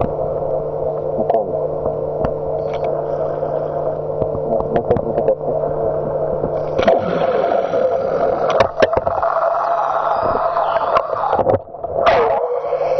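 Underwater hum of a radio-controlled Type VII submarine model's electric motors, a steady two-tone drone with gurgling water and scattered clicks. The lower hum drops out for about a second some seven seconds in, and the sound dips briefly near the end before a short rising swish.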